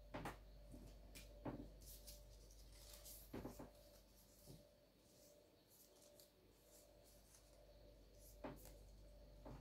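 Near silence: room tone with a faint steady hum and a few faint short clicks and rustles.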